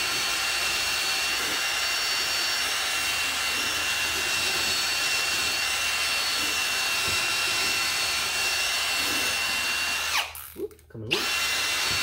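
Power drill spinning a wire-wheel brush against a tractor tire's rubber sidewall, a steady high whine over a scratchy scrubbing hiss, roughing up the rubber around a crack before it is patched. About ten seconds in the drill winds down and stops, then runs again briefly a second later.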